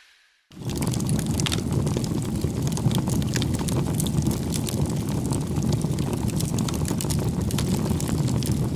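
Wood fire burning: a steady low rush with frequent sharp crackles and pops, fading in about half a second in.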